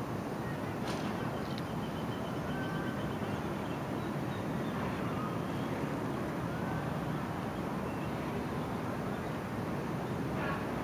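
Storm noise: a steady, unbroken rush of rain and wind.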